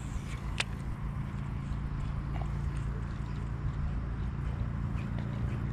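Steady low hum of a bow-mounted electric trolling motor, with water lapping against the boat's hull. A single sharp click comes about half a second in.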